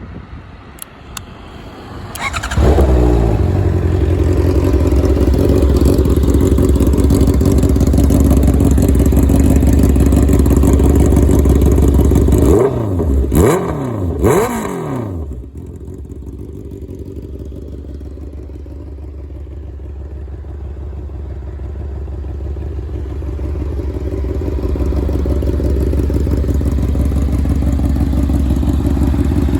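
Honda CB650R inline-four through an aftermarket SC-Project exhaust: a few clicks, then the engine starts about two seconds in and idles loudly. Around the middle it gets three quick throttle blips, each rising and falling in pitch. It then settles into a quieter idle that slowly grows louder toward the end.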